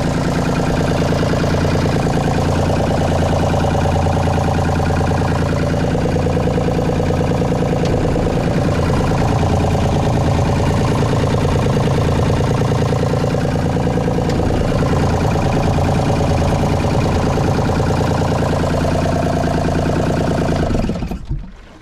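Sailboat's small inboard diesel engine running steadily at idle, then shut off near the end.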